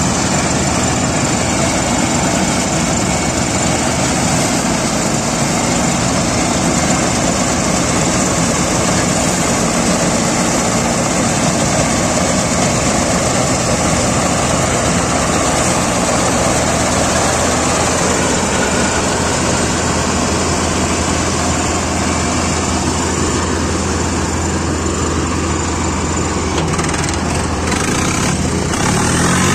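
Tractor-mounted combine harvester working through paddy, its tractor engine and cutting and threshing machinery running loud and steady.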